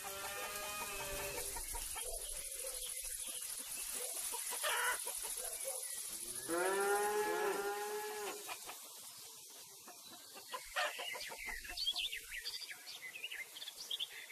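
Village farm-animal sounds: a cow mooing twice, one long call at the start and a louder one about six seconds in, over a steady high insect buzz. Scattered short clucks and chirps of chickens and small birds follow near the end.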